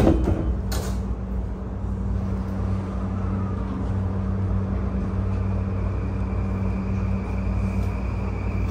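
Sliding passenger doors of an E235 series electric train car shutting with a knock, then a short hiss about a second in. The car's steady low hum follows, with a faint steady high tone coming in about halfway through.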